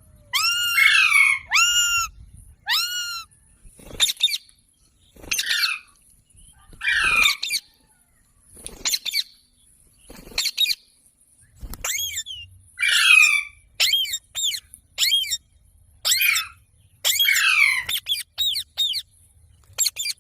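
Rose-ringed (ringneck) parakeet calling over and over: short, high, harsh calls, many falling in pitch, about one a second with irregular gaps.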